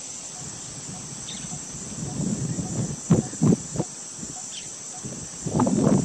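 Steady high-pitched insect chorus, like crickets, shrilling without a break, with two faint short chirps. A few short low thumps come a little past halfway, and a louder stretch of low muffled sound near the end.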